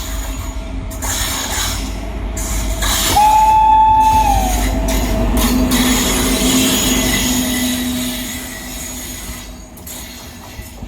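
Indian Railways WAG-9 electric locomotive and its train running past, a continuous rumble of wheels on rail. About three seconds in, the locomotive's horn sounds one high note for about a second, sliding down as it stops; the train noise is loudest around the middle and eases toward the end.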